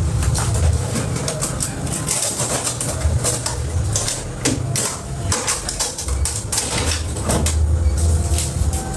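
Cooking sounds: many short clicks and knocks of utensils and cookware over a low, uneven rumble.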